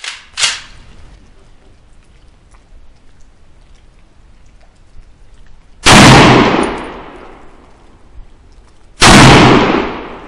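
Two shots from a Molot VEPR rifle in 7.62x54R with a 16-inch barrel, fired about three seconds apart, each loud enough to overload the recording and trailing off over about a second. A shorter, sharp clack comes in the first half second.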